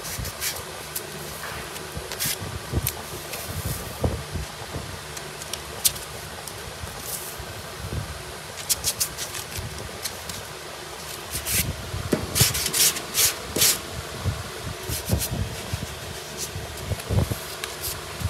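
Hand sanding of body filler on a car's steel body panel with a Dura-Block sanding block and sandpaper: scattered short scraping strokes and knocks, with a quick run of strokes about twelve seconds in, over a steady fan hum.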